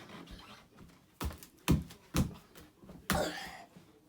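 A series of hard thuds: three about half a second apart, then a fourth about a second later with a longer, rattling tail.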